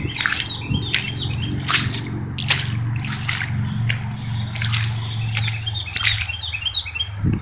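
Footsteps squelching in wet, soft quicksand, a short wet stroke every second or so as each foot sinks and pulls out. Small birds chirp near the start and again near the end, over a low steady drone that fades about five seconds in.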